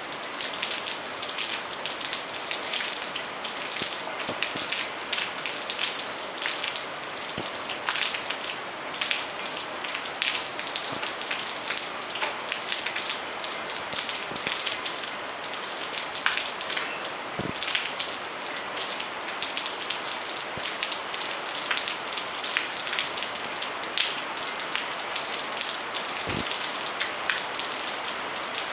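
Steady rain falling, with many close drops pattering and ticking on hard surfaces. Two dull thuds stand out, about two-thirds of the way through and again near the end.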